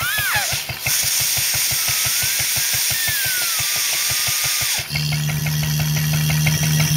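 Air from the Lister Bros. blower's outlet hissing and whistling past a thumb pressed over a pipe elbow, the whistle sliding up and down in pitch, over the fast regular beat of the 1939 Lister D stationary engine driving it. About five seconds in, the thumb comes off and the hiss gives way to a steady low hum from the open outlet.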